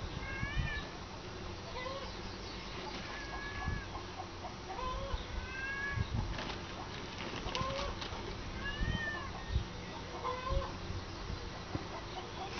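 Short rising-and-falling animal calls repeating every second or two, some higher-pitched and some lower, over steady farmyard background.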